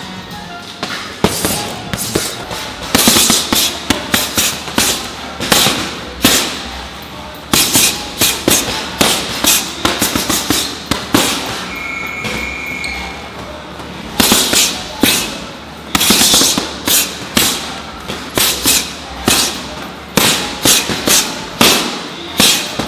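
Boxing gloves striking heavy punching bags in quick combinations of several punches, each a sharp slap, with short pauses between the flurries.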